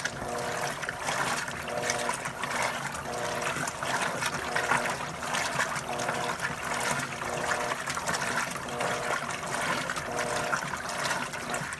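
Electrolux washing machine agitating on its heavy-duty turbo program: water sloshing and churning, with a short motor whine repeating about every second and a half as the agitator swings back and forth. The sound drops off suddenly at the very end.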